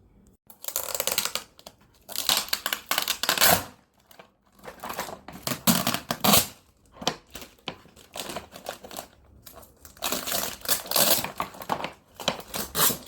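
Packaging being opened and handled: rustling, crumpling and tearing in irregular bursts, several of them loud.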